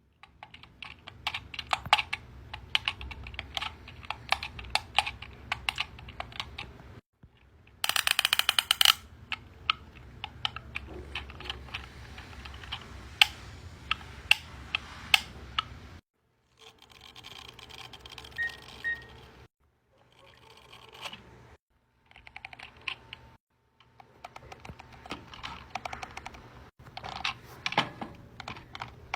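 Fidget toys being clicked, tapped and popped in close-up: a dense, irregular patter of small plastic clicks, like typing. There is a short run of very rapid, even clicks about eight seconds in. The sound stops abruptly several times and starts again with a different clicking pattern.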